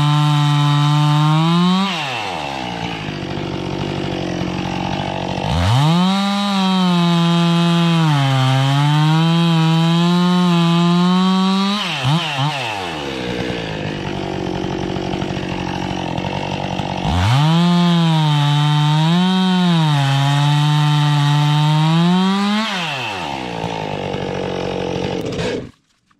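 Gas chainsaw cutting wood: three long bursts at full throttle, its pitch dipping and recovering as the chain bites, with the engine dropping back to idle between cuts. The sound cuts off suddenly near the end.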